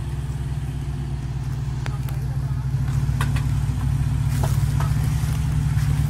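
Suzuki SJ/Samurai 4x4 engine running steadily at low revs, slowly getting louder. A few brief, faint, high chirps come over it in the middle.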